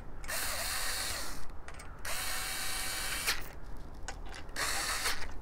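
Small handheld electric screwdriver whirring in three short runs, with brief pauses between them, as it drives screws into a tripod's metal mounting plate.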